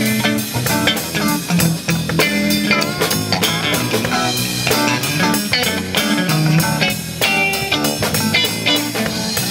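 Live band playing amplified music on electric guitars, electric bass and a Ludwig drum kit, with a steady drum beat.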